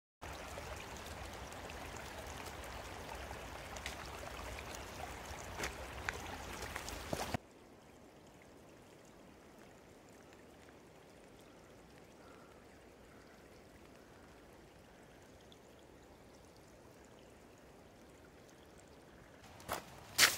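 Steady rushing outdoor background noise with a few light clicks, which drops suddenly to a much fainter hiss about seven seconds in. A few sharp crunching sounds come near the end.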